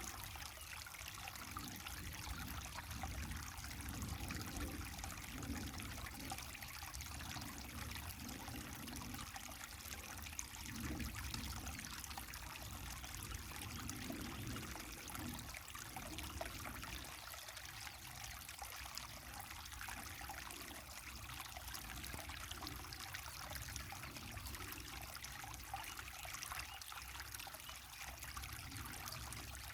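Waterfall and river water pouring and splashing steadily, with a low rumble underneath that swells and eases a little.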